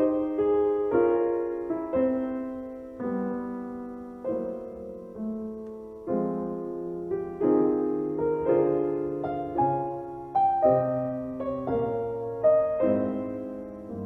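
Slow piano music: chords and a melody, each note struck and then fading away, with new notes about once or twice a second.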